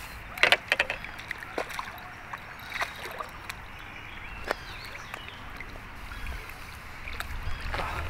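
Water sloshing at the bank with scattered sharp clicks and knocks, most of them in the first few seconds.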